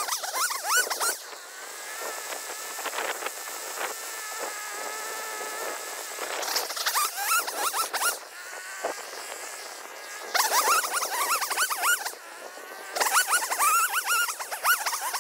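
Poulan Pro PR5020 50cc two-stroke chainsaw limbing a felled tree: the engine revs up in four short bursts as the chain cuts through branches, dropping back to a steady buzzing idle between cuts.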